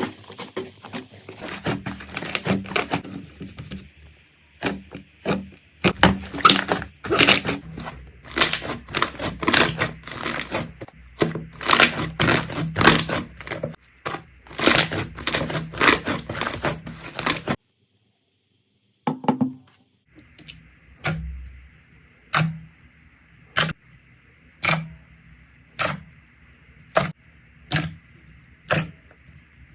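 Slime being squeezed and worked by hand: dense crackling and popping for most of the first half. After a brief silent cut it gives sharp, evenly spaced pops about once a second.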